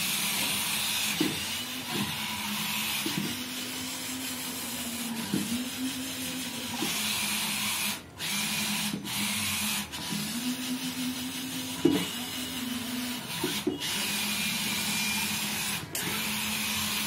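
Small electric gear motors of a toy-sized robot car whining as it drives and turns, the whine restarting every second or two with a brief rise in pitch before settling, and a few short stops.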